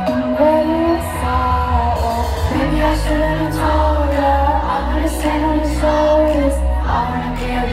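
Live pop music: a woman singing a melody into a microphone over a steady bass line and beat, heard from within a concert crowd.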